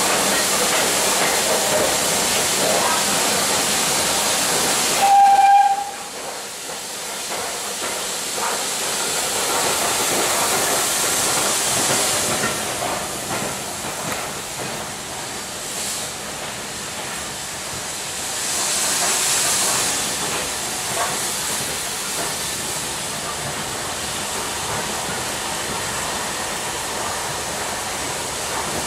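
Steam train heard from inside a carriage: a loud steady rush of running noise, cut by a short sharp whistle about five seconds in, after which the running is quieter with swells of steam hiss twice.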